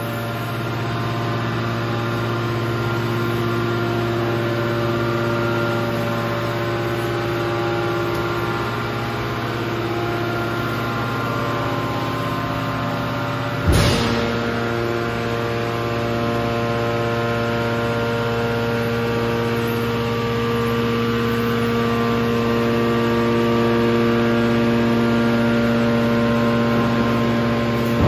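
Steady, many-toned hum of the hydraulic metal baling line's motors and pumps running, with one sharp clunk about halfway through, after which the pitch of the hum shifts.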